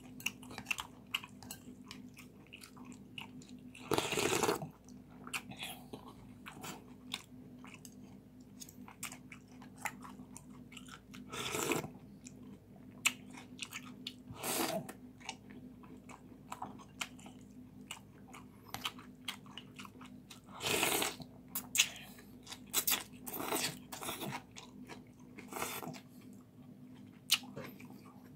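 Close-miked eating of bún riêu crab noodle soup: steady wet chewing with many small mouth clicks. About half a dozen louder slurps of broth and rice noodles stand out, each under a second long.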